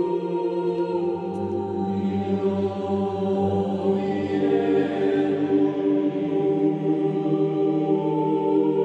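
Monks singing Gregorian chant in Latin: men's voices holding slow, long notes that move to a new pitch every few seconds.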